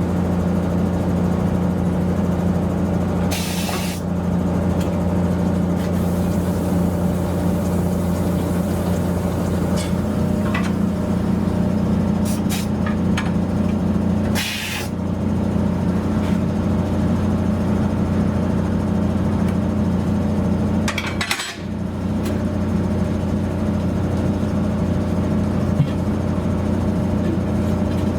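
Steady machine drone with three short bursts of compressed-air hissing, typical of pneumatic tyre-shop equipment, plus a few light clicks.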